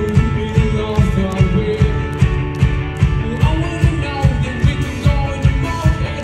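Live rock band playing at full volume: a steady drum beat under electric guitars and bass. A voice comes in singing about halfway through.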